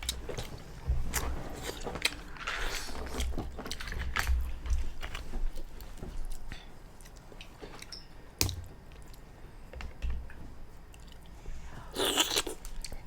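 Close-up chewing and biting of someone eating mussels, with a few sharp clicks, the sharpest about eight seconds in.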